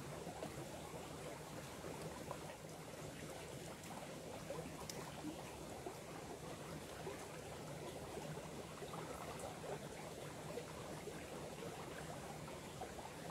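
A small stream flowing steadily, making a continuous, even rush of water.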